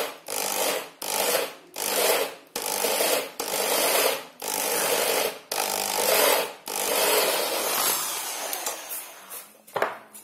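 Hand-held electric drill with a hinge-cup hole-saw cutter boring into a wooden cabinet panel in short pulses of the trigger, about seven quick bursts, then a longer run that winds down, with a couple of light knocks near the end. It is run slowly to deepen the hinge-cup hole without breaking through the other side.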